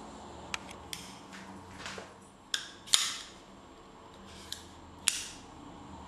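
Hubertus XPress scale-release switchblade being worked by hand: a handful of sharp metallic clicks and snaps, the loudest about three seconds in and another near five seconds, as the coil-spring blade fires open and locks.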